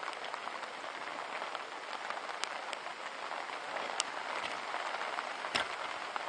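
Rain falling steadily on the green fabric canopy of a carp-fishing bivvy, an even hiss with a few sharp ticks scattered through it.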